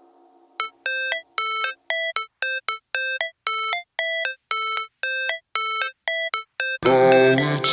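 Background music, an instrumental break in a rap track: a melody of short, separate pitched notes, about three a second, after a brief hush, with the full backing music coming back in near the end.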